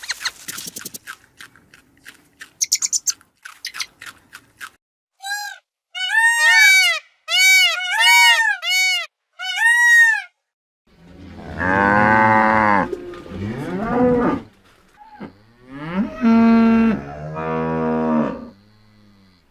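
A scatter of sharp clicks, then a quick run of short, high calls that rise and fall in pitch. These are followed by two long, low moos from cattle, each drawn out for about three seconds.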